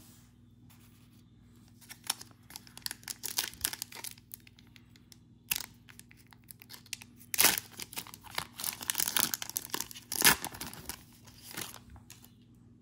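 A trading card pack's wrapper being torn open and crinkled by hand, in irregular crackling bouts: a first spell about two seconds in, and a longer, louder one from about seven to eleven seconds.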